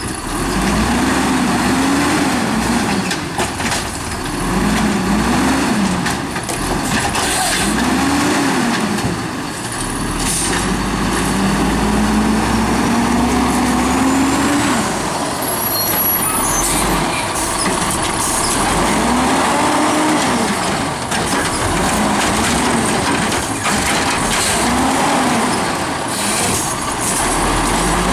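Automated side-loader garbage truck working: its diesel engine repeatedly revs up and drops back as the hydraulic arm cycles, with one longer climb in revs as it pulls ahead. Scattered metallic clanks and air-brake hisses run through it.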